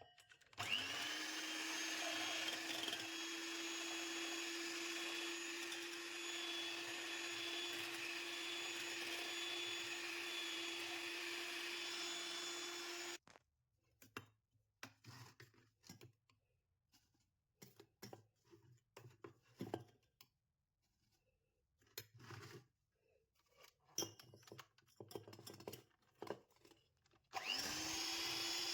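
A small electric kitchen appliance motor runs at a steady pitch, then cuts off abruptly about halfway through. Scattered light clicks and knocks follow, and the motor starts up again near the end.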